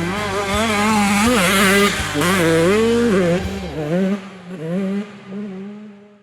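Motorcycle engine revving up and down repeatedly, fading out near the end.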